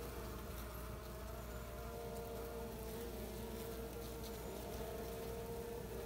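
Steady hum of a large honey bee colony, thousands of bees crowded over exposed brood comb.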